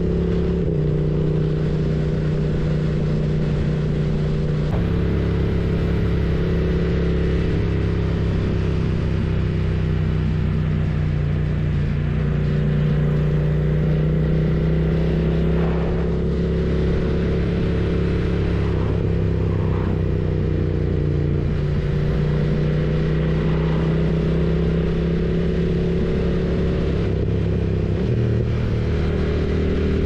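BMW F900R's parallel-twin engine running steadily on the move, its pitch stepping up and down a few times as the revs change.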